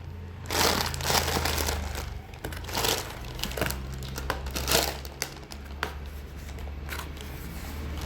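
Packaging handled by hand during an unboxing, rustling in irregular bursts, about six over several seconds, with a steady low hum underneath.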